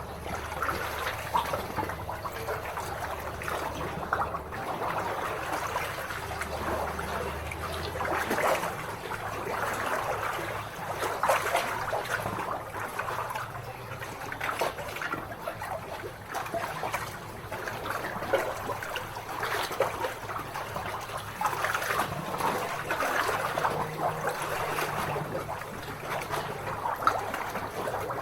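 Lake water lapping at the shore: a continuous, irregular patter of small splashes and trickles.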